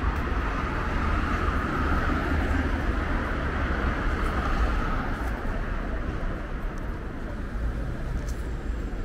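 Road traffic on a busy city street: passing vehicles make a steady rush of engine rumble and tyre noise that is loudest in the first half and eases off after about five seconds.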